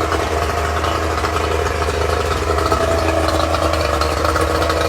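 1985 Yamaha 50 hp two-stroke outboard motor running steadily, a loud, even engine drone.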